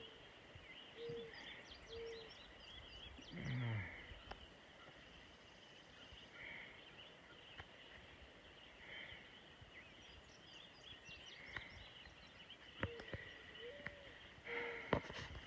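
Faint birdsong from several birds: short repeated whistled notes, higher chirps and trills over a steady high hiss. About three and a half seconds in there is a brief, louder, low falling sound, and a few sharp clicks come near the end.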